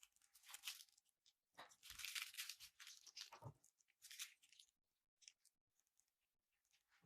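Faint crackling and crunching of slime being squeezed and pulled apart by hands, in uneven bursts, the longest and loudest about two to three seconds in.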